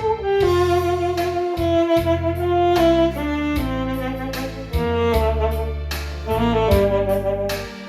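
Instrumental music: a lead melody of long held notes that step from pitch to pitch, over a steady bass and backing accompaniment.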